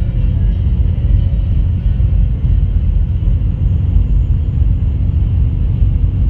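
Peterbilt 379 semi truck cruising at highway speed: a steady low drone of its diesel engine and road noise, with no changes in pace.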